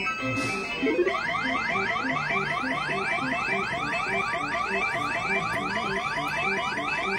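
Claw crane machine's electronic sound effect during the claw's descent and grab: a rapid string of rising electronic sweeps, several a second, over a repeating beeping tune, starting about a second in.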